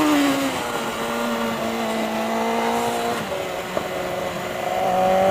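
BMW S1000RR inline-four engine running hard through a corner: the note falls off at first, changes pitch abruptly about one and three seconds in, and climbs again near the end as the throttle comes back on, over a rush of wind hiss.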